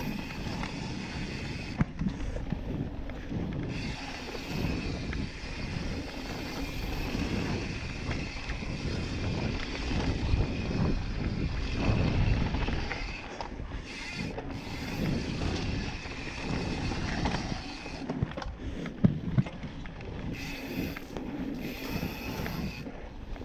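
Yeti SB5 full-suspension mountain bike descending a dirt singletrack: Maxxis tyres rumbling over dirt and rock, the bike rattling, and wind on the microphone. The rumble gets louder midway, with a sharp knock about two seconds in and a quick cluster of knocks later on.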